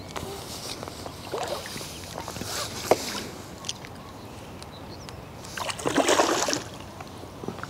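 Water splashing and sloshing in short surges, three times, the last one the longest and loudest: a hooked carp thrashing at the surface against the pole elastic.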